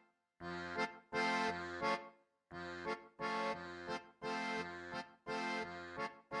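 Background music: sustained chords in short phrases, each broken off by a brief gap.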